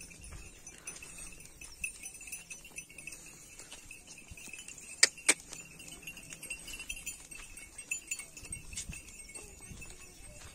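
Goats walking along a dirt path: scattered light clicks and patters of hooves and footsteps, with two sharp clicks about five seconds in. A steady high-pitched hum runs underneath.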